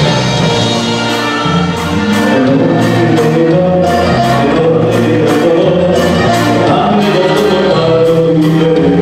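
Dance band music with a singer, over a bass line and a steady beat of about two drum strikes a second.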